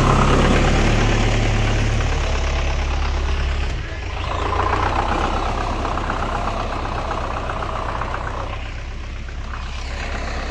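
Belarus 510 tractor's diesel engine running steadily; its note drops about four seconds in.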